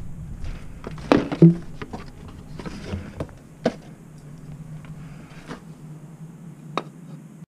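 Handling noise from a new spin-on oil filter and its cardboard box: scattered knocks and clicks, with two louder knocks about a second in, over a steady low hum. The sound cuts off suddenly near the end.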